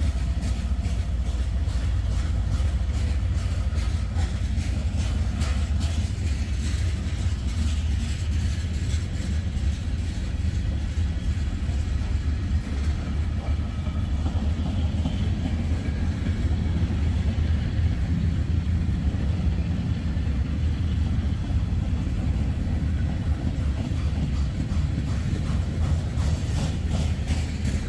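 A slow-moving freight train rolling past: a steady low rumble of the cars on the rails, with scattered wheel clicks.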